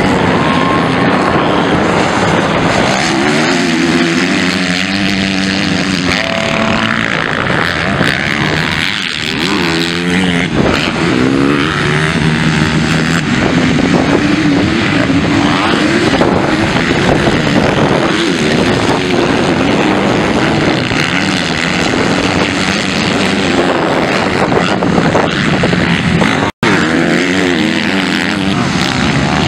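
Motocross dirt bike engines revving hard and easing off again and again as the bikes race around the track. The pitch keeps climbing and falling as the riders accelerate and shift. The sound cuts out for an instant near the end.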